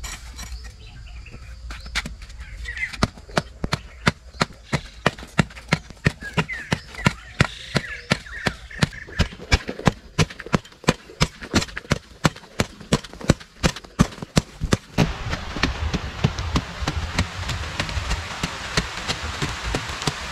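Digging tool chopping into hard, dry soil in quick repeated strikes, about three or four a second. The strikes stop about fifteen seconds in and give way to a steady rushing hiss.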